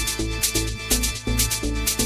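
Electronic dance music with a steady beat, a pulsing bass line and a repeating short melodic figure.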